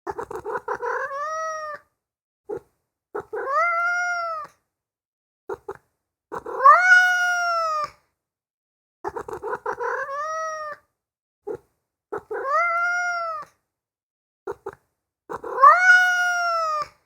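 Domestic cat meowing over and over: about six drawn-out meows, each rising and then falling in pitch. Several open with a quick stuttering chirp, and there are short silences and a few brief clicks between calls.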